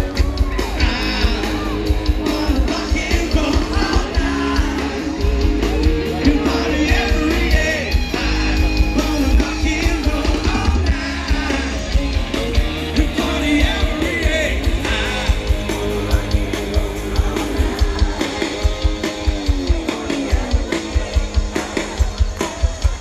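Rock music with a singer from an outdoor stage's PA system, with a regular drum beat growing more distinct near the end.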